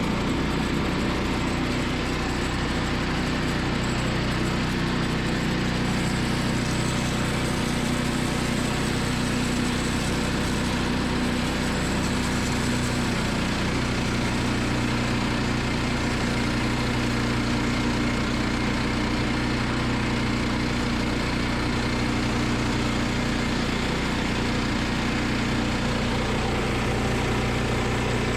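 Gas engine of a Woodland Mills portable bandsaw sawmill running steadily while the mill saws through the log, its pitch shifting slightly about halfway.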